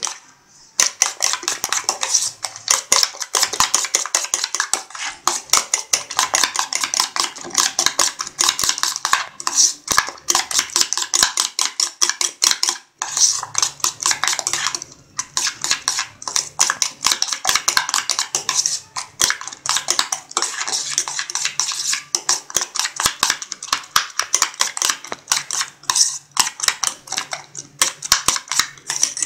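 A steel spoon beating raw eggs with chopped onion in a stainless steel bowl: rapid, steady clinking of the spoon against the bowl, with a short break about halfway through.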